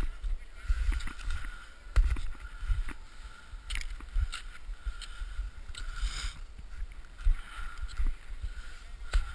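Muffled low rumbling and scattered sharp knocks on a GoPro camera, with a faint steady high tone underneath.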